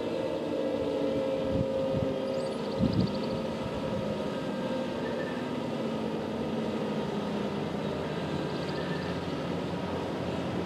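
Several distant outdoor warning sirens winding down, their tones slowly fading, over a steady background hum. A few short low thumps come about two to three seconds in.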